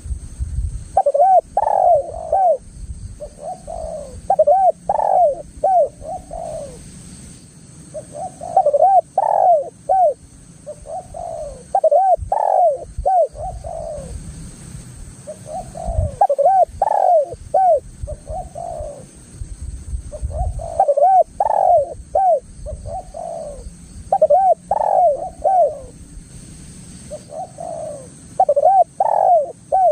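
Spotted dove (tekukur) cooing in its repeated phrase of rising-and-falling notes, a phrase about every four seconds, calling vigorously.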